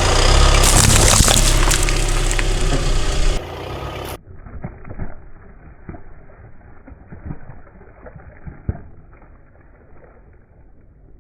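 A car tyre rolling over and crushing brittle objects: loud crunching and splintering over the rumble of the car. From about four seconds in it turns quieter and muffled, with scattered sharp cracks.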